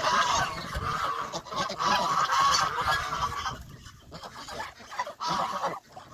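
Domestic geese honking, several overlapping calls for the first few seconds, then a lull and another short burst of honks about five seconds in.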